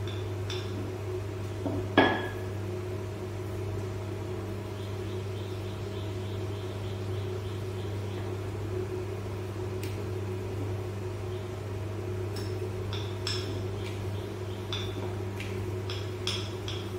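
Steady low electric hum, with one sharp clink of kitchen utensils about two seconds in and a scatter of light clinks and taps near the end.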